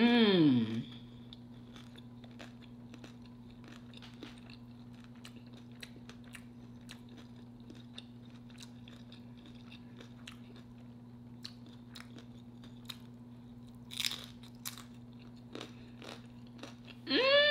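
Close-up crunching and chewing of homemade tortilla chips loaded with shrimp, crab and Alfredo sauce, a run of small crisp cracks with a sharper crunch about 14 s in. A short falling hum of the voice comes right at the start and a rising-then-falling one near the end, over a steady low hum.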